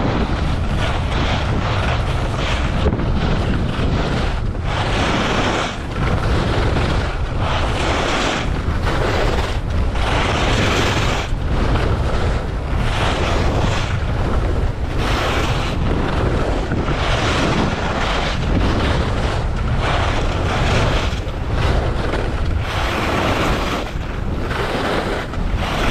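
Wind rushing over a GoPro's microphone during a fast ski descent, with ski edges scraping over wind-packed snow in a steady rhythm of turns.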